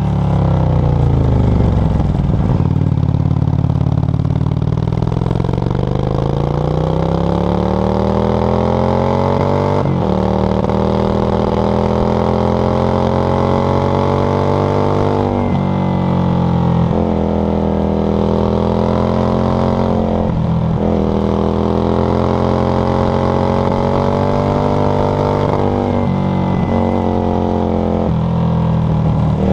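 Yamaha XV535 Virago's V-twin engine through a SilverTail K02 aftermarket exhaust, under way: the engine note falls for the first few seconds as the throttle closes, then climbs steadily through the revs, breaks and climbs again about ten seconds in as a gear is changed, with several brief drops in pitch later on.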